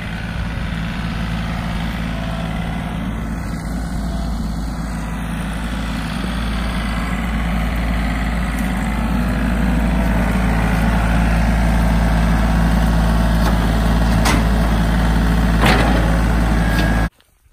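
Tractor engine running steadily, growing gradually louder over the first ten seconds, with a couple of sharp knocks near the end before the sound cuts off abruptly.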